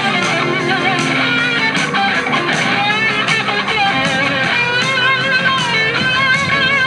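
Rock music with electric guitar and a steady drum beat, a guitar solo with wavering bent notes.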